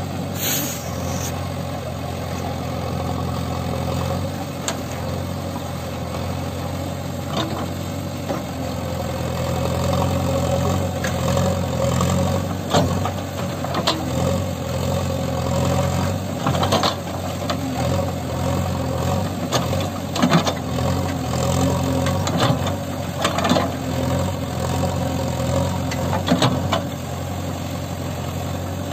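JCB 3DX backhoe loader's diesel engine running steadily under load while the backhoe works. From about ten seconds in, sharp knocks and cracks come every second or two.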